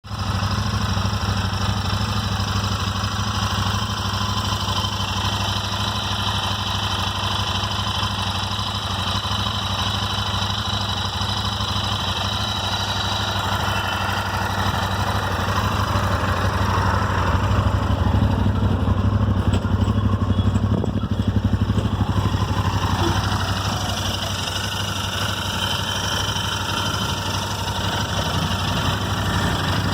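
Royal Enfield Interceptor 650's parallel-twin engine idling steadily, with a random ticking from the left side of the engine around the rocker/head covers, a fault the dealer has been unable to cure.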